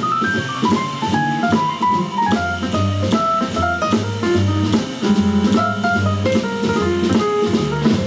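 Live small-group jazz: an electric keyboard plays a fast run of single notes over an upright bass and a drum kit. The cymbals tick steadily under the melody.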